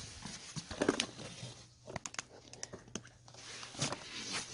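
Handling noise: scattered clicks, light knocks and rustles as the camera is carried down to the chainsaw and the saw is handled, over a steady low hum, with the loudest rustle near the end.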